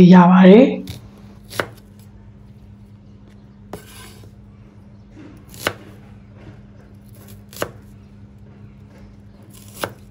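Steel cleaver chopping a red onion on a wooden cutting board: single knocks of the blade through the onion onto the board, about every two seconds, five in all.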